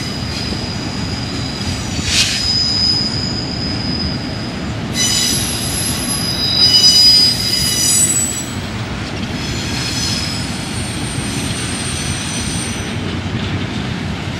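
Double-stack intermodal container train rolling past with a steady low rumble, its wheels squealing in high, drawn-out spells that come and go three times, loudest a little past halfway.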